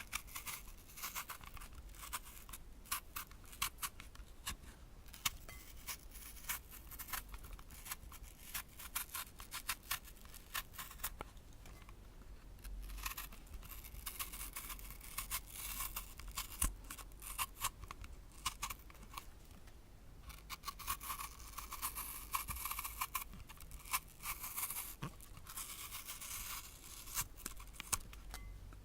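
An apple being peeled with a blade: close, rapid clicking and scraping as the peel is cut away, in runs of varying density with a brief pause about twelve seconds in.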